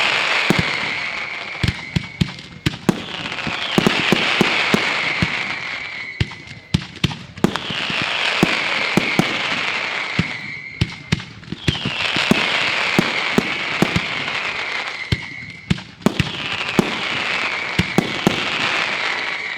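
Fireworks going off. About every four seconds comes a hissing whistle that falls in pitch over two to three seconds, with sharp bangs and pops scattered throughout.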